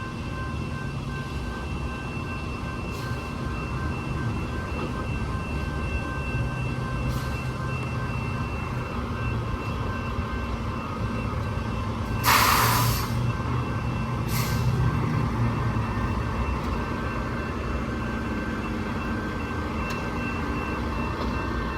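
Rail maintenance truck on the track running steadily, a low engine rumble with a faint steady whine over it. About halfway through comes a sharp hiss, and a shorter one two seconds later.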